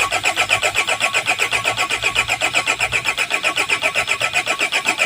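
Hyundai Bongo diesel engine being cranked on the starter motor, turning over in an even rhythm of about seven pulses a second without catching. It will not fire because no electrical power reaches its semi-electronic injection pump.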